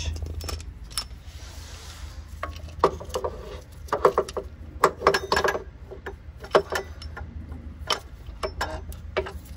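Metal-on-metal clinks and knocks in irregular clusters as a replacement serpentine belt tensioner is worked into place on its mount, with a wrench and the tensioner parts tapping and ringing briefly, over a steady low hum.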